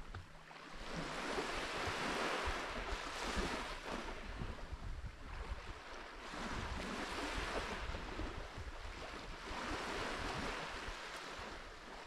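Small sea waves washing in on the shore, the hiss swelling twice, about five seconds apart, with a low wind rumble on the microphone.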